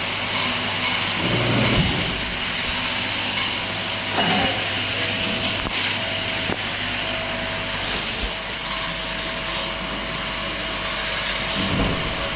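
Automatic liquid bottle filling line running: a steady machine hum with a thin constant whine, broken a few times by short pneumatic air hisses.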